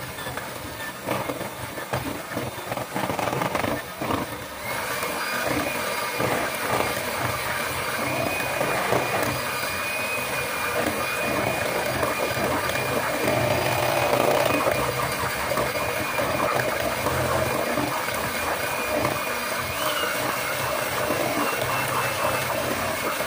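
Electric hand mixer running, its twin beaters whipping a thick cream mixture in a plastic bowl. The motor gets louder about five seconds in and holds a steady high whine.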